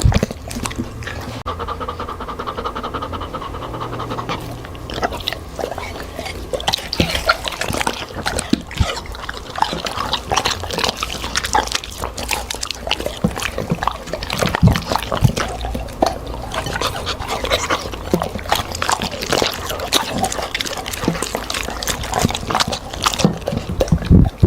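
A dog eating fruit and vegetables, chewing and smacking in a run of irregular short clicks.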